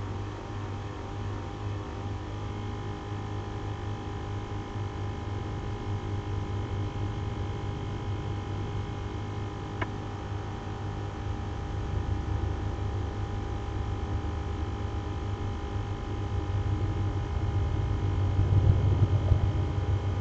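Steady machine hum made of several held tones over a fluttering low rumble that grows louder near the end, with a single sharp click about ten seconds in.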